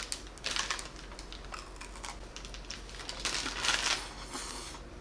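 Crinkling of a chocolate bar's plastic wrapper being handled, in a few short bursts.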